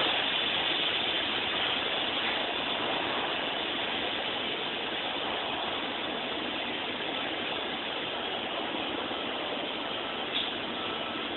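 TIG welding arc hissing steadily, with one brief click about ten seconds in.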